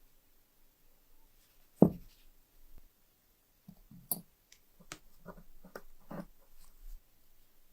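Clicks and taps of hands working on a small brass lighter and its parts, with one louder knock about two seconds in and a run of light irregular clicks later.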